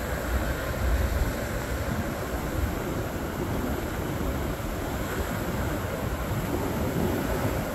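Ocean surf breaking and washing in a steady rush, with the low rumble of wind on the microphone.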